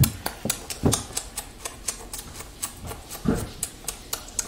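A rapid, irregular run of sharp clicks, several a second, with a soft thump about a second in and another a little past three seconds.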